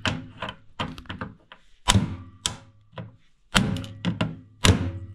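Irregular sharp metal knocks and taps from a socket wrench working the fastener of a hook on a Buran snowmobile's body panel, a fastener that spins in place instead of coming loose. The heaviest knocks fall about two, two and a half, three and a half and nearly five seconds in.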